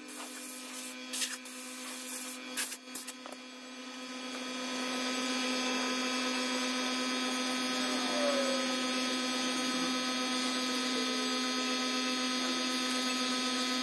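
A few light knocks and taps as the shadow box frame pieces are handled. From about four seconds in, a steady machine hum with several held tones rises and runs on evenly.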